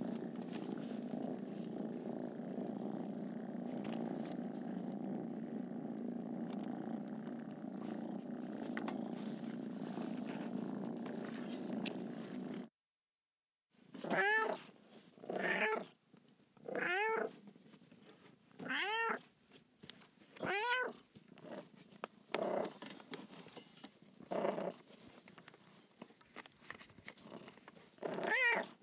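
A domestic cat purring steadily for about twelve seconds. After a brief pause, a cat meows about eight times, one to two seconds apart, most calls rising and then falling in pitch.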